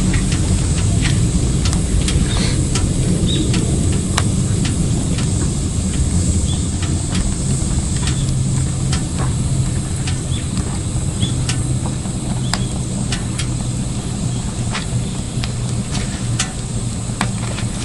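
Firewood burning in a wood stove, crackling with irregular sharp pops over a steady low rumble.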